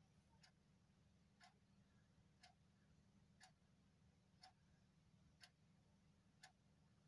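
A clock ticking faintly, once a second, over a low steady hum.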